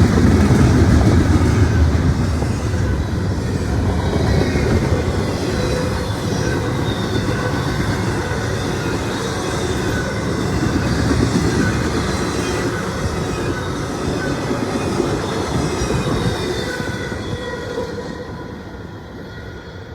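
Norfolk Southern intermodal train's cars rolling past, with a steady rumble and clatter of wheels on rail and a faint high wheel squeal. The sound fades near the end as the train moves away.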